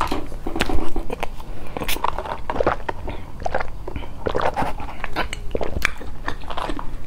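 A person chewing and eating close to a clip-on microphone, with frequent irregular mouth clicks; about four seconds in she sips a drink through a straw.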